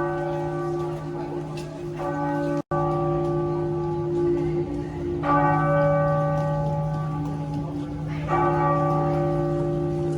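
Church bells struck slowly, three strokes about three seconds apart, each ringing on over a steady low hum until the next. The sound drops out for an instant shortly after the first stroke.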